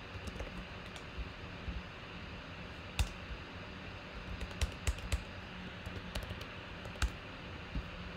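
Typing on a computer keyboard: about a dozen sparse, irregular keystroke clicks, a few louder than the rest, over a steady low hum.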